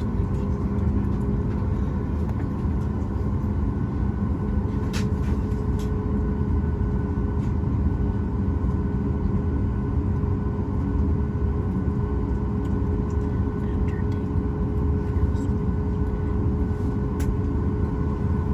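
Steady low rumble and hum inside a Boeing 737 MAX 8 passenger cabin, with a few constant tones over the noise and a couple of faint clicks.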